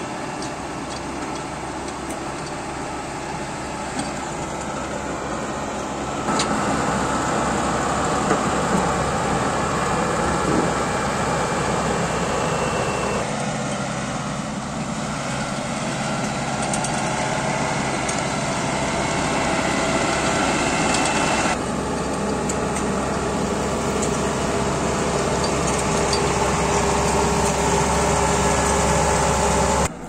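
Kubota AR90 combine harvester's diesel engine running steadily close by. The sound shifts abruptly in loudness and tone three times.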